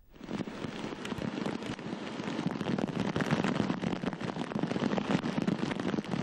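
Heavy rain and a rushing flooded river: a dense, crackling hiss of falling water that grows slightly louder.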